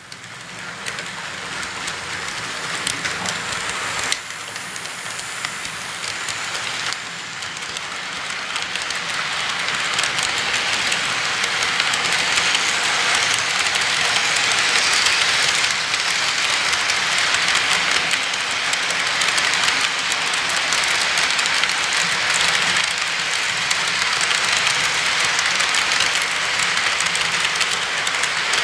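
Model freight cars rolling along layout track close by: a steady rushing clatter of small wheels on rail with fine rapid clicking, building over about the first ten seconds as the train draws near, then holding steady.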